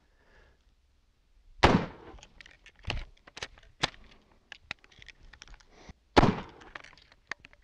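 Spencer lever-action repeating rifle, firing its .56 rimfire cartridges: two shots about four and a half seconds apart. Between them come sharp metallic clicks as the lever is worked to feed the next round and the hammer is cocked.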